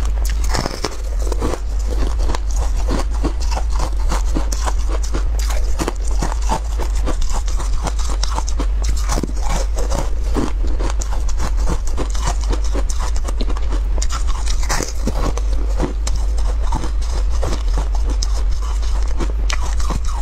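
Biting and chewing a frozen dessert, with many irregular crunches, over a steady low hum.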